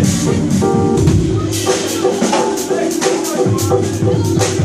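Live jazz-funk band playing: electric bass and drum kit driving a groove, with short held melodic notes over the top.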